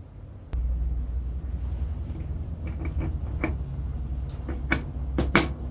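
Light metal clicks and taps as the large drive gear of a vintage Black & Decker reciprocating saw is handled and seated in its gear housing, a few at first and the loudest near the end, over a steady low hum.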